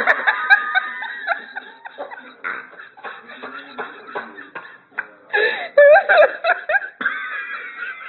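People laughing in several bursts, loudest at the start and again about five seconds in.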